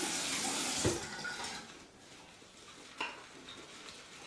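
A steady hiss of running water stops about a second in with a knock, followed by quiet clinks and scraping in a lathering bowl full of shave cream lather.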